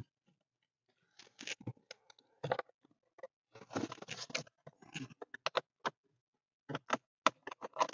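Scattered scratching, rustling and light clicks of a camera wire being pushed through a hole behind plastic dashboard trim by hand, starting about a second in.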